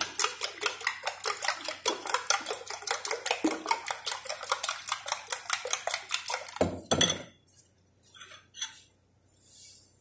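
A utensil beating eggs in a ceramic bowl: fast, steady clinks against the bowl, several a second. About seven seconds in the beating stops with a louder knock, followed by a few soft hisses.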